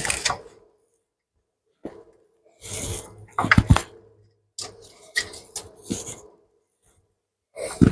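Gloved hand rubbing and knocking close to the microphone while threading a bolt into the alternator bracket by feel: four short bursts of rustling and scraping, with a few sharp metal clicks.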